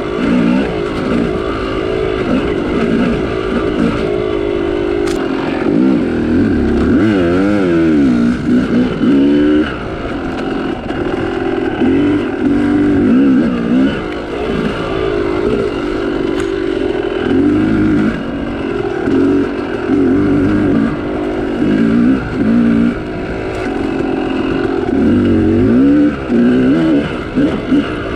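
Yamaha YZ250 two-stroke dirt bike engine being ridden on a trail. Its pitch climbs and drops over and over as the throttle is opened and rolled off, with quick rev swings about seven to nine seconds in.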